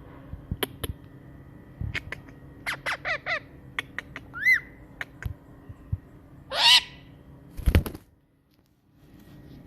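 Pet parrot calling: scattered clicks and short chirpy calls, a rising-and-falling whistle, then one loud harsh squawk about two-thirds through. A low thump follows shortly after the squawk.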